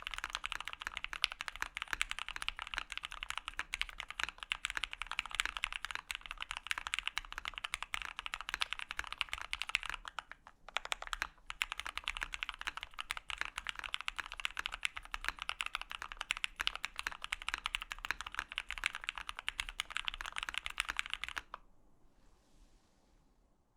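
Continuous rapid typing on a custom mechanical keyboard: Gateron Ink linear switches lubed with Krytox 205g0, in a Daji Seis Cinco aluminium case on an aluminium plate, with CRP Desko Black keycaps. The typing breaks off briefly about ten and a half seconds in, and stops about two seconds before the end.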